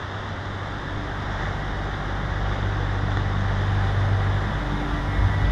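Surf washing on a shore, a steady rushing, with a low hum swelling beneath it; the whole grows gradually louder.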